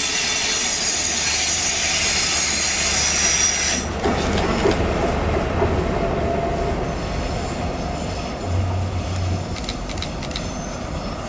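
Great Western Railway High Speed Train rolling slowly past, its wheels squealing on a curve for about the first four seconds before the squeal cuts off suddenly. The Class 43 power car's diesel engine then runs with a low drone, and a few wheel clicks over rail joints come near the end.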